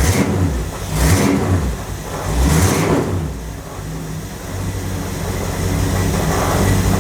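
Hot rod car engine running steadily while its 727 TorqueFlite automatic transmission is tested in gear, with two brief louder surges about a second and nearly three seconds in.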